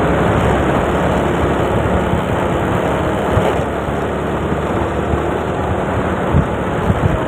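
Wind rushing over a phone microphone on a moving motor scooter, with the scooter's engine running steadily underneath. A couple of short knocks come near the end.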